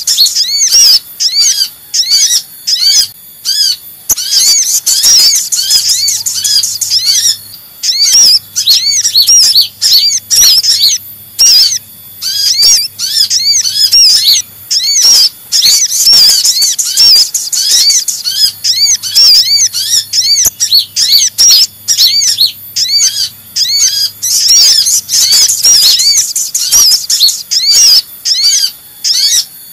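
A bird-lure recording of kolibri ninja sunbird calls mixed with sogok ontong calls: rapid, busy, high-pitched chirping in dense runs broken by brief pauses.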